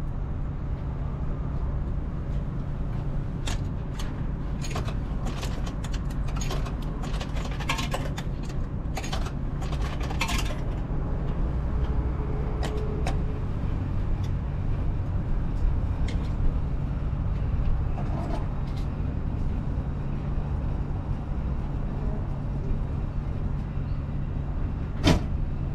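Retro ramen vending machine running as it prepares a bowl: a steady low hum, with a run of clicks and rattles in the first half, a short tone about halfway and a sharp clack near the end.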